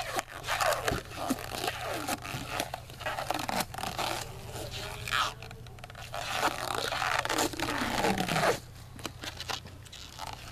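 Tape and rubbery Plasti Dip film being peeled and torn off a truck's door-window trim by hand, in irregular rips and crinkles.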